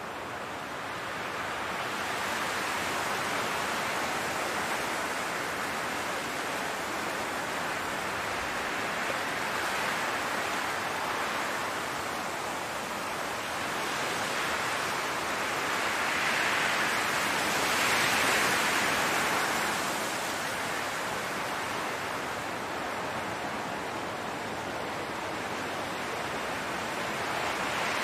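Wind blowing across a grass field, a steady rushing that swells and eases in slow gusts, strongest just past the middle.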